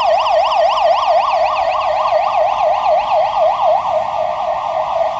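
Industrial alarm siren sounding a fast warble, sweeping up and down about four times a second, during a scheduled lights-and-sirens test.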